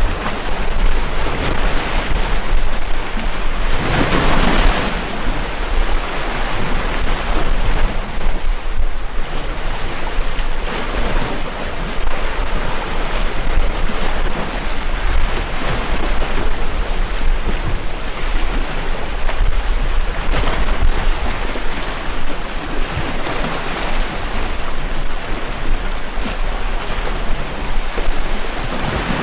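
Sea waves breaking and washing against a rocky shore in a steady surging rush, with wind rumbling on the microphone; one wave surges louder about four seconds in.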